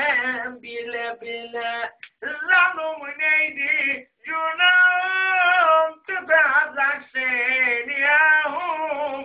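A man sings an atma türkü, a Black Sea folk song, unaccompanied in a high voice, in short phrases broken by brief pauses for breath.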